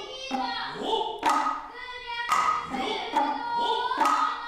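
Noh chanting in a child's high voice, delivering a line of text, with sharp strikes of the Noh hand drums about once a second.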